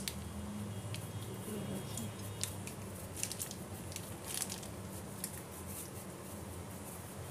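Cheese being grated on a flat stainless-steel hand grater: short, irregular scraping strokes, with a steady low hum underneath.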